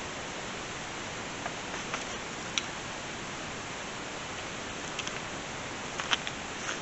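A few faint, scattered clicks and taps as gloved hands pick a spent bullet out of a chunk of ice, over a steady hiss.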